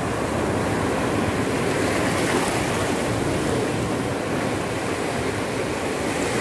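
Steady rushing noise of sea waves and wind, with no breaks or distinct events.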